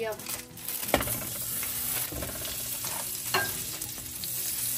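Butter sizzling and melting in a hot frying pan, a steady hiss. A sharp knock about a second in and a few lighter knocks after it.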